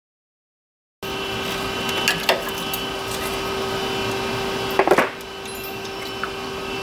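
Silent for the first second, then a steady machine hum with a few sharp metal clicks and clinks from tools being handled under a truck. The loudest clicks come together just before the hum drops in level about five seconds in.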